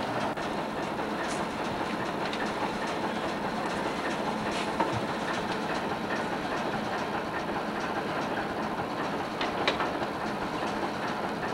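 Small steam-powered rail motorcar with a vertical boiler, making a steady hissing running noise, with a few sharp light clicks.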